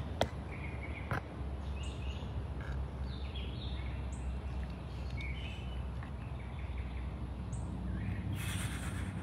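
Wild birds chirping in short, scattered calls over a steady low background rumble, with a single click just after the start and a short breathy burst of noise near the end.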